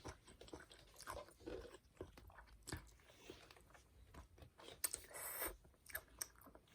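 Soft close-up eating sounds of a child chewing and biting spicy cold bibimmyeon noodles with crisp cucumber, with scattered small crunches and mouth clicks and a brief louder noisy smear about five seconds in.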